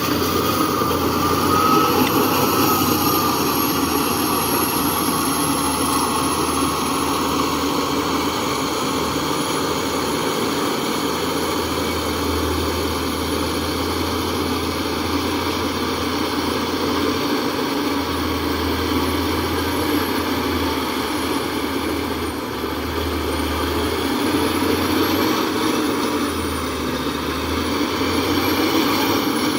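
Heavy diesel engine of earth-moving machinery running steadily, with faint whines that rise and fall in pitch near the start and again near the end.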